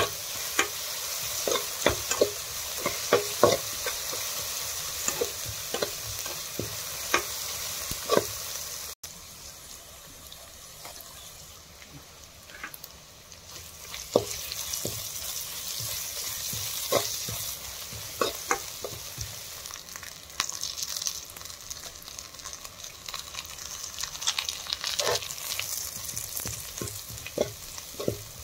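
Sliced onions and garlic sizzling in hot oil in a stainless steel kadai, with a metal spoon scraping and clacking against the pan as it stirs. The sizzle drops abruptly quieter about nine seconds in, then builds again.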